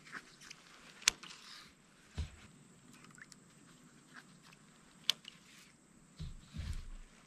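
Handling noises in a plastic kayak as a caught redfin is lifted on the line: two sharp clicks about a second in and about five seconds in, a dull knock about two seconds in, and a cluster of dull knocks near the end.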